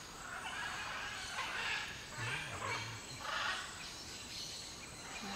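Riverside rainforest ambience: a series of soft hissing swishes about once a second over a thin, steady high insect whine.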